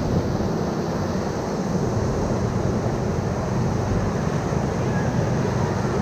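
Steady rush of whitewater rapids around a raft, with wind noise on the microphone.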